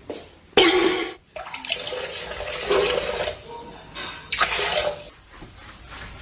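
Water running and splashing in a few irregular surges, the longest lasting nearly three seconds.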